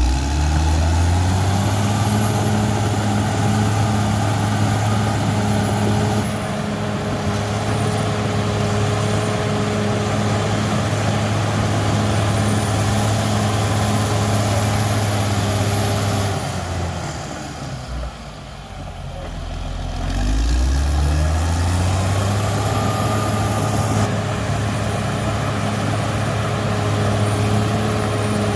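Caterpillar D6R XL bulldozer's diesel engine running steadily at working revs. About 16 seconds in, the engine speed falls away, then climbs back up over the next few seconds.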